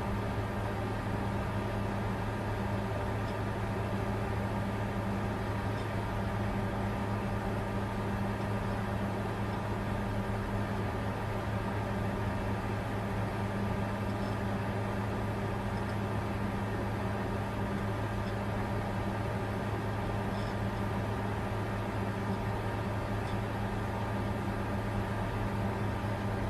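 Bitcoin mining computer running steadily: a constant whir of cooling fans over a low, even hum.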